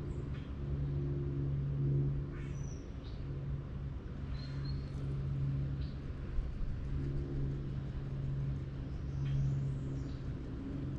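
A low motor hum that cuts out and comes back every few seconds, with birds chirping now and then.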